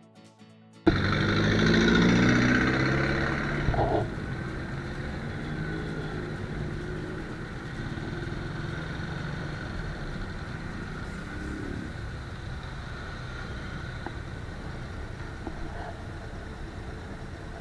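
Motorcycle engine starting up abruptly about a second in, its pitch rising as it accelerates, then running steadily at low speed.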